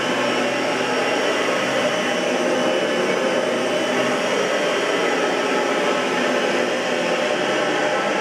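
Oreck XL21 upright vacuum cleaner running steadily: a constant motor tone over rushing air, with no change in speed.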